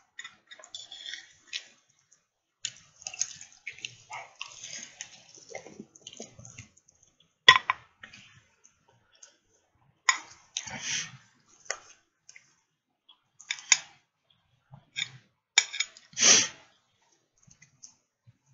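Close-up wet chewing and lip-smacking of a person eating, in irregular bursts with sharp clicks.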